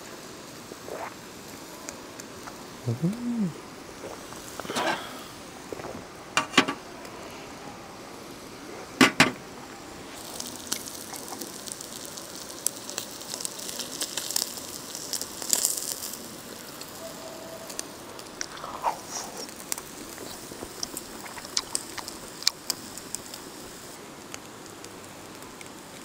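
Food sizzling and crackling over a camp cooking fire, a dense spatter of fine crackles from about ten seconds in. In the first ten seconds there are a few sharp knocks and clinks of cooking gear being handled.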